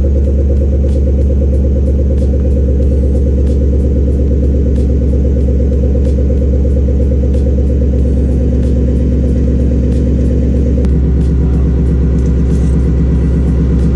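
A 2018 Mustang GT's 5.0-litre Coyote V8 idling steadily through its newly fitted Steeda H-pipe exhaust, heard from underneath the car. A light, regular ticking sits over the deep exhaust note, which shifts slightly about eleven seconds in.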